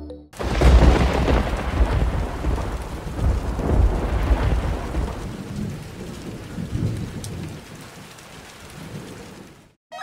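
Thunder rumbling over steady rain. The rumble swells about a second in and again mid-way, then the storm dies down and cuts off just before the end.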